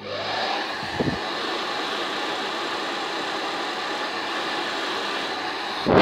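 Hand-held hair dryer switched on, its motor spinning up with a brief rising whine and then running steadily with a rush of blown air. It gets louder near the end as the nozzle comes close.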